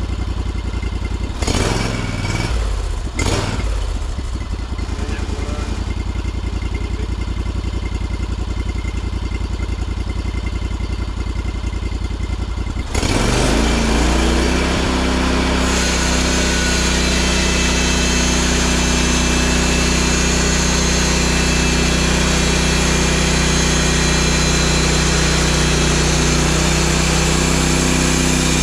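Sawmill engine running steady; about halfway through it speeds up and runs louder, with a bright hiss coming in over it. A couple of short knocks in the first few seconds.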